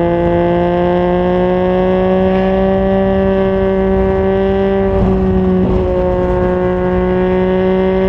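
Yamaha MT-09's inline-three engine through a Yoshimura R55 slip-on exhaust, pulling steadily at high revs at highway speed, its pitch climbing slowly. About five seconds in the pitch eases slightly under a brief rush of noise, then starts climbing again.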